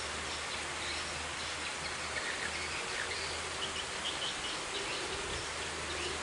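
Steady outdoor background hiss with a low rumble underneath, and faint short bird chirps scattered through it.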